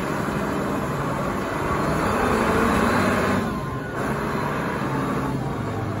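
Engine of a large Caterpillar forklift running as the machine drives, steady throughout, a little louder around the middle and dipping briefly just after.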